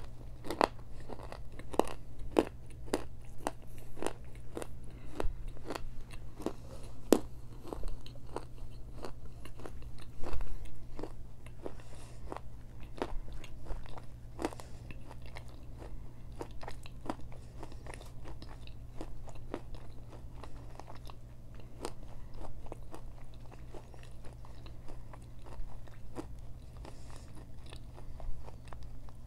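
Close-up chewing of crunchy baked clay from a Mexican clay pot treat: sharp crunches in quick succession, thinning out to sparser crunches after about twelve seconds.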